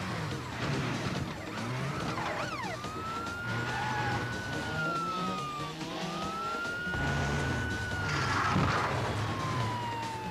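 Police siren wailing in long, slow rise-and-fall sweeps, twice, with the second falling away near the end, over action background music. A brief falling squeal comes about two seconds in.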